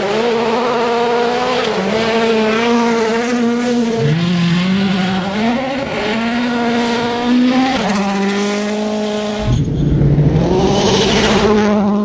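World Rally Car turbocharged four-cylinder engines at full throttle on gravel stages, rising in pitch through each gear and dropping at the shifts. About three quarters through, a sudden louder rush as a car passes close.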